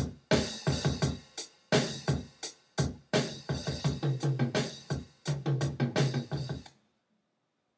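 Drum-machine beat from a Maschine drum group playing back unmixed, pretty loud, with sharp hits over a heavy bass. It stops suddenly near the end.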